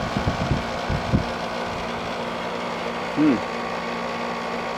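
General Electric ADEL50LRL2 dehumidifier running with its case off: a steady hum from the compressor and fan. Its coils are turning cold, the sign that the refrigeration system works. A few low knocks come in the first second.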